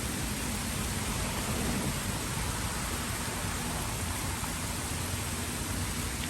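Steady rain falling, an even hiss with no breaks or individual drops standing out.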